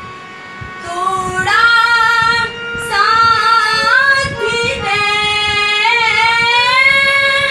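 A girl singing a Bhojpuri song, accompanying herself on a harmonium. The voice comes in about a second in and holds long notes over the harmonium's sustained tones.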